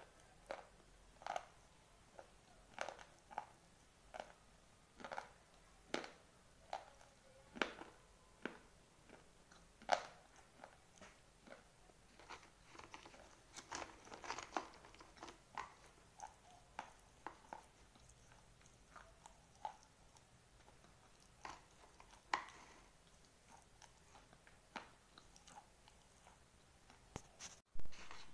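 Close-up chewing of dry white slate pencils: crisp, irregular crunches about once or twice a second as the chalky pieces are bitten and ground. A sharper click comes near the end.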